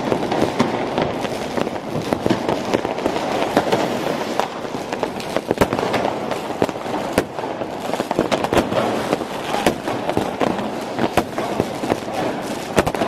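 Fireworks and firecrackers going off without a break: a dense, continuous crackling din, with many sharp bangs standing out, a few louder reports among them.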